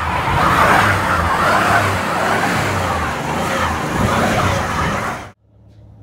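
Classic air-cooled Porsche 911 flat-six running hard as the car moves off on a snowy road, with a dense rushing engine and tyre sound that cuts off abruptly about five seconds in.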